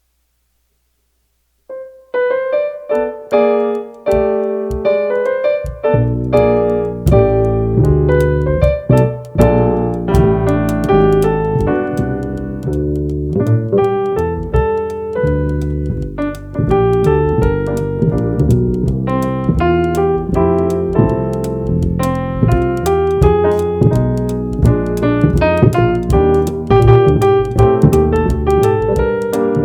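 Jazz trio music: a keyboard starts alone after a second or two of silence, playing chords and melody. A bass comes in underneath about six seconds in, and the two play on together.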